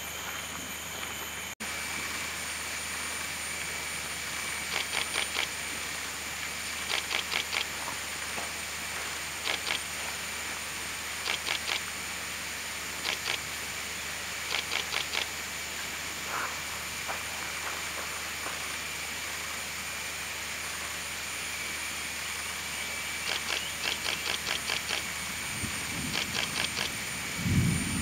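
Lowland rainforest ambience: a steady high insect drone, with a call of short rapid series of four to six high ticks repeated every one to two seconds from about five seconds in. A few low thumps come near the end.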